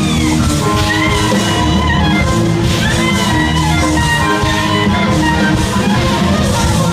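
Live rock band music: lead guitar holding notes that bend in pitch, over bass and drums.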